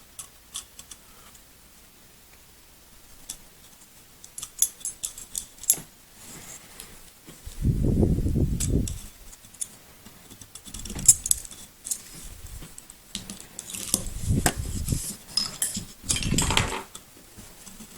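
Small steel pistol parts clicking and clinking as they are handled and fitted during reassembly of a CZ 75 SP-01, with scattered sharp metallic ticks and a few dull handling bumps.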